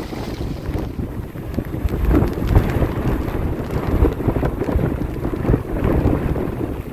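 Strong, gusty wind buffeting the microphone: a loud, uneven low rumble that swells and eases.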